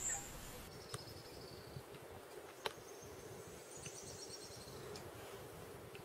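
Insects trilling: two short, high, rapid trills, one about a second in and one around four seconds in, with a few faint clicks.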